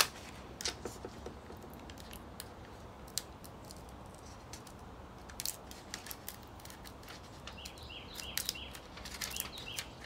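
Faint crinkling and small clicks of a vinyl decal sheet and plastic transfer tape being handled and peeled, with a quick run of short scrapes near the end.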